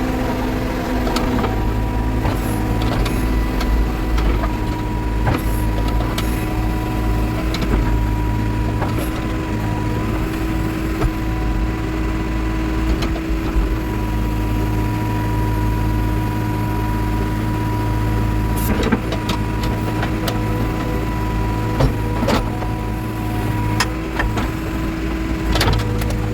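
Backhoe loader's diesel engine running steadily under work, with a steady whine over the engine drone and a few sharp knocks.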